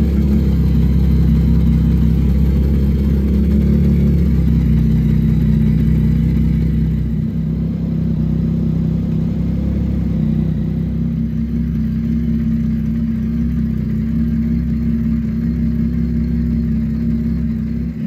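A 2022 Yamaha XSR900's 890 cc inline-three engine idling steadily through an aftermarket full exhaust system.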